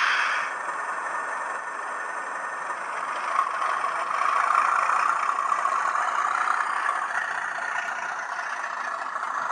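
N gauge Class 37 model locomotive's DCC sound decoder playing its diesel engine sound through a tiny onboard speaker, thin with no deep bass. The engine sound swells louder a few seconds in, then eases back.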